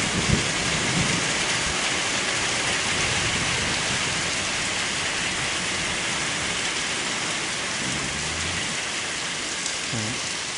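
Steady rain falling through a thunderstorm, with a low rumble of thunder dying away in the first second or so.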